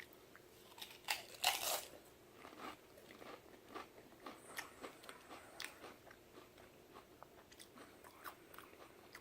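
Pringles potato crisps crunching as they are bitten into, loudest about a second in, then chewed with many smaller irregular crunches.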